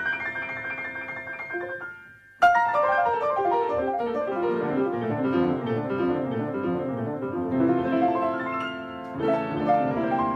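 Solo grand piano playing a classical piece. About two seconds in it briefly fades, then a sudden loud chord starts fast runs of notes cascading downward.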